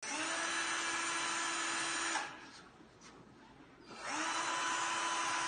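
Electric drill running in two bursts: it runs for about two seconds and winds down, then after a pause of nearly two seconds it starts up again and keeps running.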